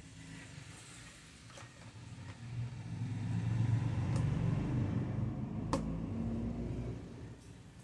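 A low rumble swells over a few seconds and then fades, with a few light clicks and taps from a laptop screen panel being handled and fitted, one sharper click about two-thirds of the way through.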